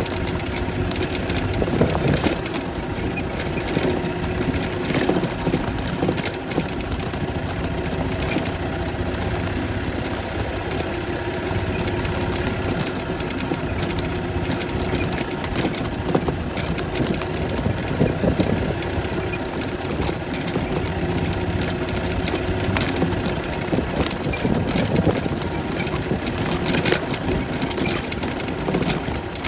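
Golf cart driving over bumpy grass: a steady motor drone with irregular rattles and knocks from the ride.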